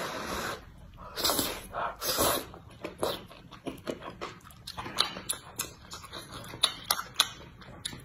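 Thick noodles slurped in a few long, hissing sucks, followed by wet chewing with many sharp lip-smacking clicks.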